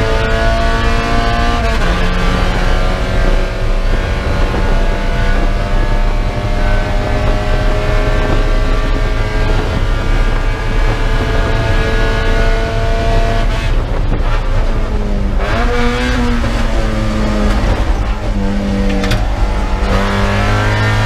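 Spec Miata race car's four-cylinder engine heard from inside the cockpit, under full throttle. It shifts up once about two seconds in, then pulls steadily higher in pitch to about 100 mph. From about fourteen seconds in it slows under braking, with quick rev blips on the downshifts, and picks up again near the end.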